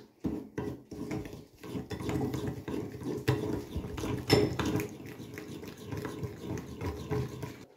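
A metal spoon stirring a thick olive-oil and spice marinade in a ceramic bowl: continuous scraping against the bowl with scattered clinks, the sharpest about four seconds in.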